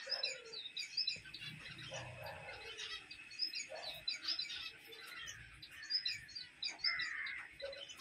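Small caged finches chirping, many short high calls overlapping.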